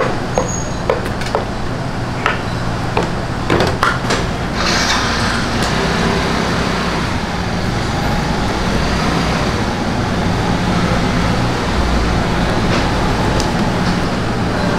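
A steady low mechanical rumble with a constant hum, like a motor or engine running, with a few light clicks and knocks in the first four seconds and a short hiss about four and a half seconds in.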